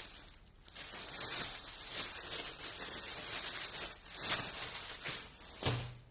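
Plastic food wrapping rustling and crinkling as it is handled, uneven and continuous, with a soft thud near the end.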